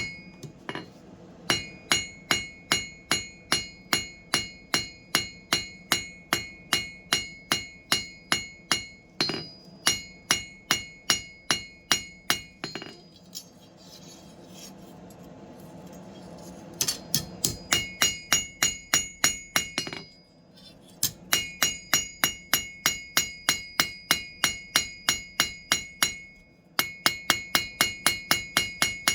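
Blacksmith's hammer striking steel on an anvil in steady runs of about three blows a second, each blow with a bright ringing note. The runs break off several times, longest for about four seconds past the middle.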